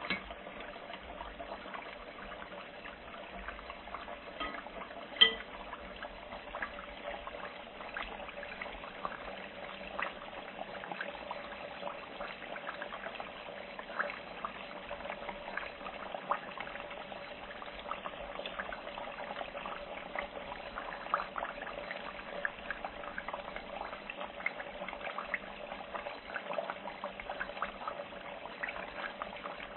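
Food frying in hot oil: a steady sizzle with scattered crackles and pops, and one sharp pop about five seconds in.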